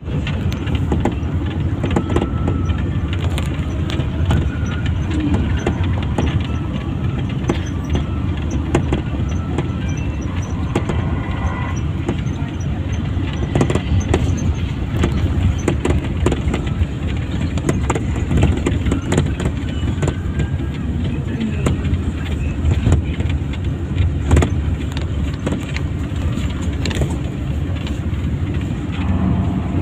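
Moving road vehicle running, a steady low rumble with scattered light rattles and clicks.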